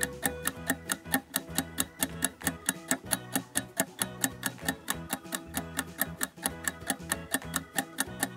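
Countdown timer sound effect: rapid, evenly spaced clock-like ticks over a light background music loop.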